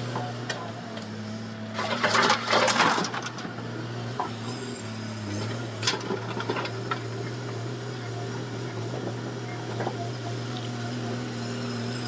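Komatsu hydraulic excavator's diesel engine running with a steady drone. About two seconds in, a loud rough burst of noise lasts about a second, and a few sharp clicks follow near six seconds.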